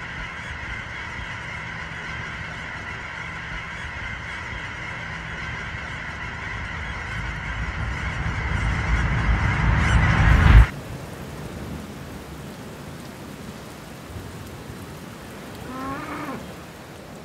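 A large flock of cackling geese calling all at once, a dense chatter of high yelps over a low rumble that swells louder until it cuts off abruptly about ten seconds in. After that the background is quieter, with a single short call near the end.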